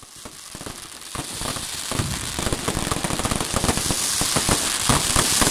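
Aerial fireworks bursting overhead: a dense, rapid crackle of many overlapping pops and bangs that grows louder over the first few seconds.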